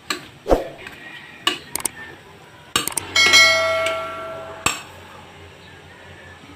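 A metal fork clinks and knocks against an aluminium pot several times while stirring noodles. About three seconds in, a quick pair of clicks is followed by a bell-like ding that rings for about a second and a half, the sound effect of a subscribe-button animation.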